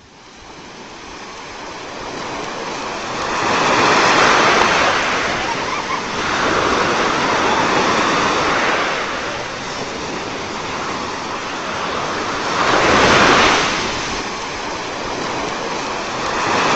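Sea surf breaking and washing up on a beach. It fades in over the first few seconds, then swells and ebbs as each wave comes in, loudest about thirteen seconds in.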